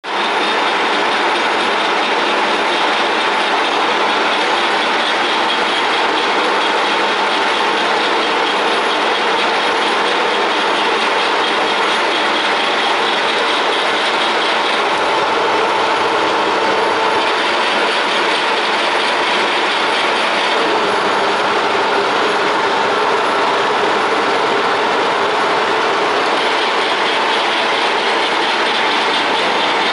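TOS H-80 horizontal boring machine running, its headstock gearing giving a loud, steady mechanical whine and rattle. The pitch of the whine shifts about halfway through and again a few seconds later as the headstock levers are worked.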